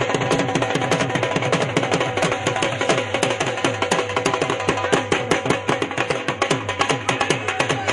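Music driven by fast, dense drumming, with low drum notes that drop in pitch on each stroke.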